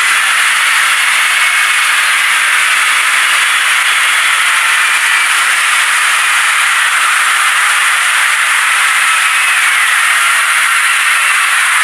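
'Void scream' sound effect: a loud, unbroken, harsh hissing screech centred in the upper middle range, with faint wavering pitch lines in it and no low end.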